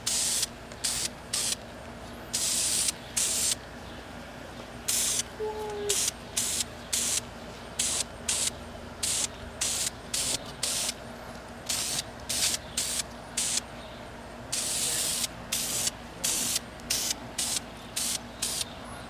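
Pressurised spray hissing in many short bursts, each a fraction of a second long and coming about once or twice a second with brief pauses between, over a faint steady hum.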